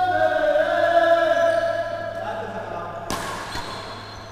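A person's voice holding one long drawn-out note for about two seconds, over the hum of a large sports hall. About three seconds in comes a single sharp smack of a badminton racket hitting the shuttlecock.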